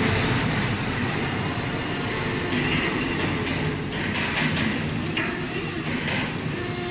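Forklift engines running steadily while carrying a heavy slung load, a continuous mechanical rumble.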